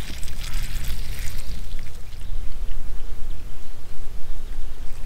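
Water pouring steadily from a plastic watering can onto dry soil.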